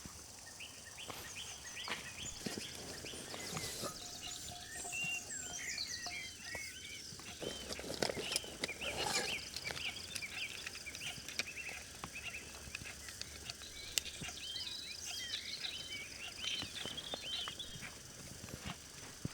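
Small birds twittering, with many quick rising-and-falling chirps that start about four seconds in and go on until near the end. Faint steady background noise and a few scattered sharp clicks and light knocks run underneath.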